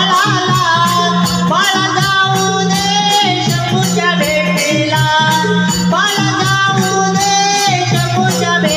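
Marathi folk devotional song (a gan in Konkan jakhadi style): a singer's gliding, ornamented melody over an even percussion beat and a steady low accompaniment.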